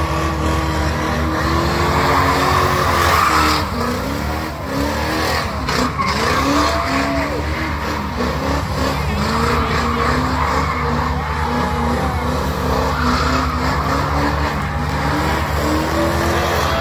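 A car doing a burnout: its engine held at high revs, the pitch rising and falling over and over, over the continuous screech of spinning tyres.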